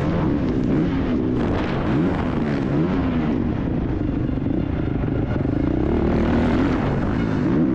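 Honda CRF450R motocross bike's single-cylinder four-stroke engine heard onboard at race pace, repeatedly revving up and dropping back as the rider accelerates, shifts and rolls off through the turns and jumps.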